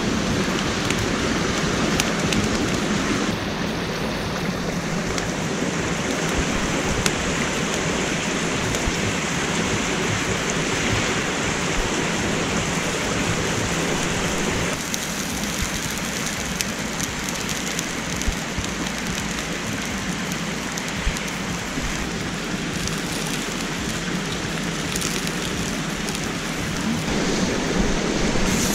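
Small mountain stream rushing steadily over rocks, with a few faint crackles from the wood campfire; the rush shifts in tone a few times.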